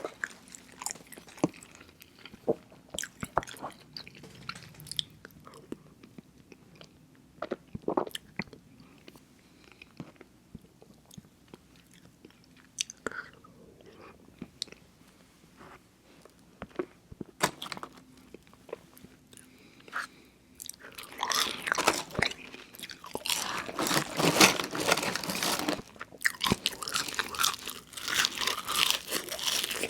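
Close-miked eating: scattered wet chewing clicks and mouth smacks, then, about two-thirds of the way through, loud dense crunching of crisp food that breaks off briefly and starts again near the end.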